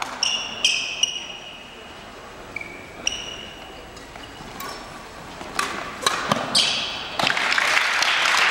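Badminton shoes squeaking on a wooden gym floor in short high chirps, several in the first second and a couple more around three seconds in. Sharp racket strikes on the shuttlecock follow between about five and seven seconds in, then the crowd breaks into applause near the end.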